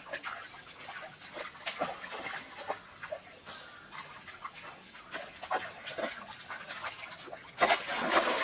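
Bare feet wading and splashing through a shallow, stony stream, with a short high chirp repeating about once a second. Near the end a woven bamboo basket is plunged and swept through the water in a loud splash.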